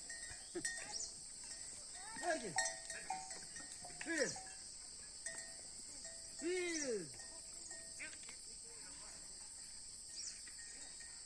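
Livestock bells clinking now and then over a steady high insect drone, with three short rising-then-falling calls, the loudest about six seconds in.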